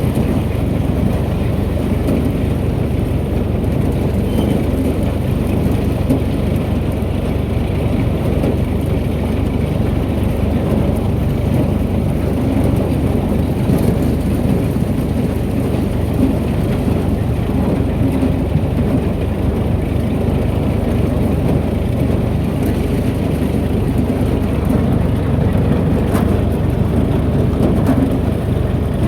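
Tractor running steadily, powering a corn elevator that is unloading a wagon of ear corn into the crib.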